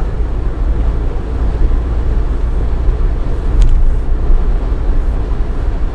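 Steady low rumble of road and wind noise heard inside a car's cabin cruising at expressway speed into a headwind, with one faint click about three and a half seconds in.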